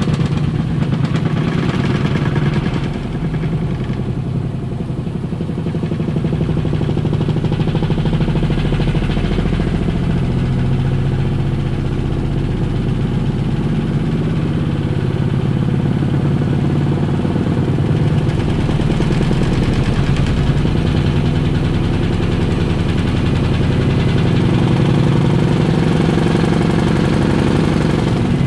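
Samsung front-loading washing machine spinning its drum at speed with an unbalanced load in service-mode spin test, a loud steady running hum with a fast rattle from the drum.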